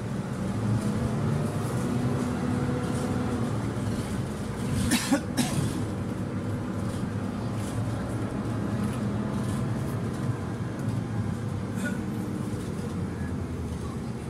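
City bus heard from inside the passenger cabin while driving: a steady engine hum with road rumble. About five seconds in, a quick cluster of three or so sharp sounds cuts through.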